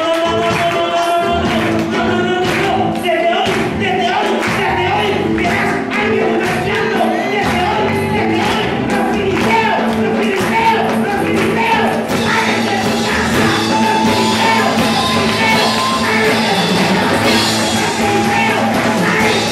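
Live worship music with singing and a steady beat of percussion, with voices shouting along.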